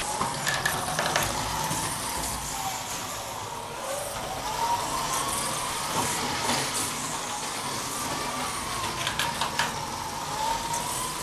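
Whine of a 1/32 slot car race truck's small electric motor running on the track, its pitch rising and falling every few seconds as it speeds up and slows through the corners. Scattered light clicks run through it.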